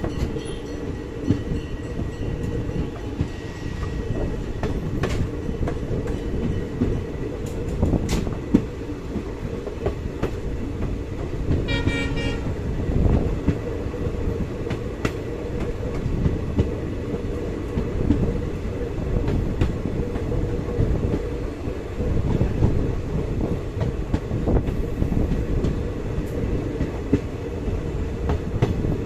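Indian Railways passenger coach running slowly along the track, with a steady low rumble and scattered sharp clicks from the wheels. About twelve seconds in, a train horn sounds once, for about a second.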